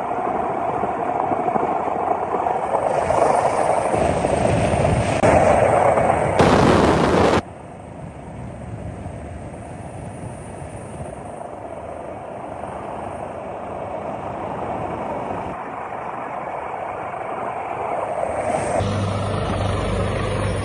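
Helicopter rotor and engine noise, a steady rushing drone. It drops sharply in level about seven seconds in, and near the end it changes to a lower steady hum.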